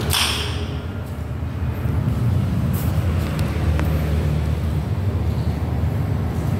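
A steady low rumble, with a brief rustle at the start and a faint click a little before four seconds in.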